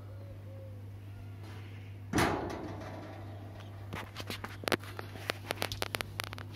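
Sheet-metal cabinet door of a gas barbecue being opened: a sudden scraping burst about two seconds in, then a run of light metallic clicks and taps as the door and panels are handled.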